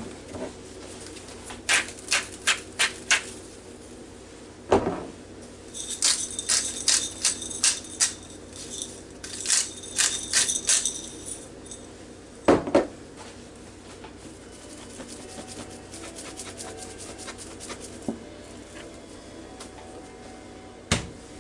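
Potatoes and carrots in a bowl being oiled and seasoned again: runs of short, quick sprays and shakes, most of them clustered in the first half, with an occasional knock of a container against the bowl or counter.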